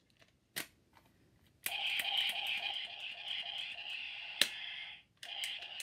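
A single click, then the cylinder of a toy Colt Python revolver being spun, a steady whir full of fast ratcheting clicks. It breaks off briefly near the end and starts again at once.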